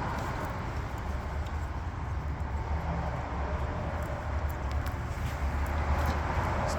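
Steady low mechanical hum under a hiss of background noise, with a few faint clicks.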